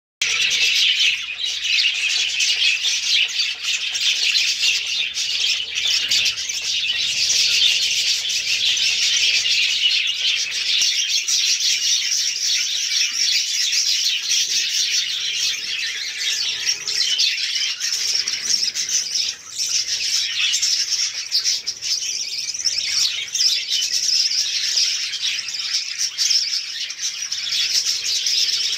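A large flock of budgerigars chattering together, a dense, continuous mass of high warbling chirps and squawks.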